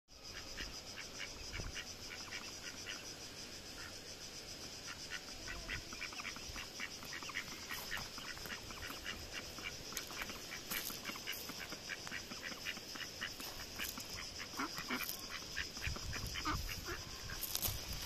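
Black domestic ducks calling in quick runs of short, repeated quacks, over a steady high-pitched background hum.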